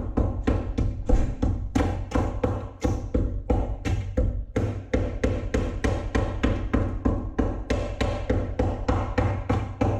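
Background music with a steady, fast percussive beat of about four hits a second over a sustained bass line.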